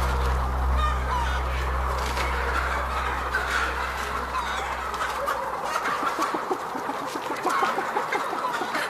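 Chickens clucking continuously in short, irregular calls, over a low hum that fades out about six seconds in.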